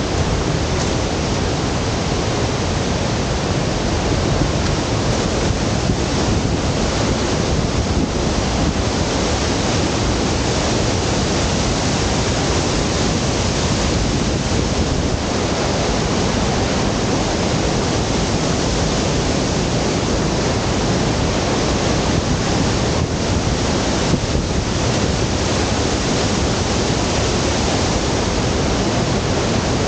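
Steady, loud rushing of a large waterfall's falling water, an even noise with no breaks.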